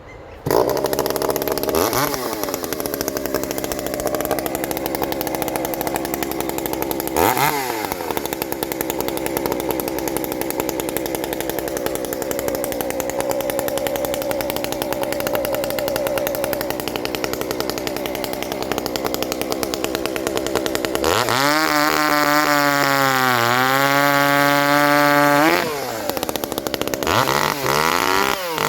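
Ported Shindaiwa 390sx two-stroke chainsaw running, blipped up a couple of times. About three-quarters of the way in it is held wide open for four seconds, its pitch sagging and recovering as it works through a cut, then drops back and is blipped again near the end.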